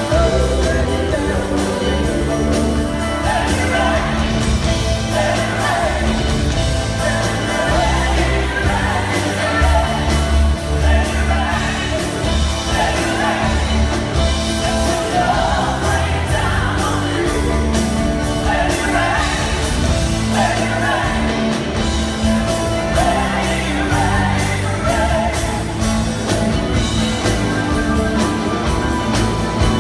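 Live rock band playing, with a man singing lead over electric guitar, bass and drums, heard from among the audience.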